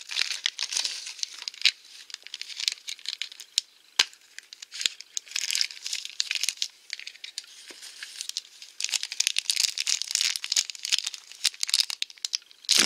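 Thin yellow wrapper around a blind-pack toy crinkling as it is unwrapped by hand, with a few sharp plastic clicks from a small toy container. A louder knock comes near the end.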